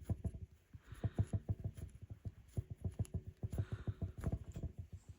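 Wool strips being pulled up through the rug backing with a hand hook: a quick run of soft, low thumps, several a second, with a brief rustle about a second in and again near four seconds.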